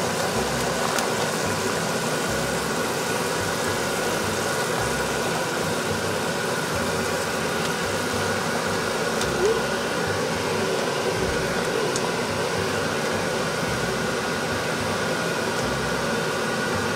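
Pot of water at a rolling boil, bubbling steadily, with a faint steady hum underneath.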